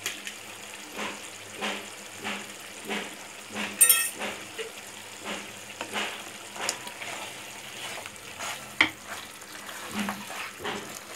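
A pan of mutton curry bubbling and sizzling on the heat, with a sharp metal clink about four seconds in. Near the end a spatula stirs the curry, scraping against the pan.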